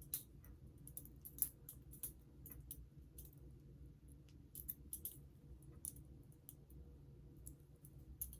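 Balisong being flipped by hand: irregular light clicks and clacks as the handles and blade swing on their pivots and knock together, one sharper clack about one and a half seconds in.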